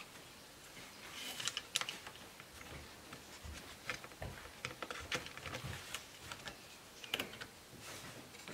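Scattered light clicks and taps of a screwdriver and fingertips on a laptop's plastic case parts, prying gently at a stuck power-button piece.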